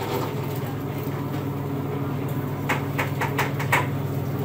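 Electric sugarcane juice machine running with a steady low hum as a cane stalk is fed through its crushing rollers. About three seconds in comes a quick run of sharp cracks as the cane is crushed.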